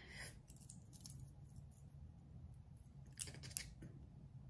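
Near silence: room tone, with two faint light clicks a little over three seconds in.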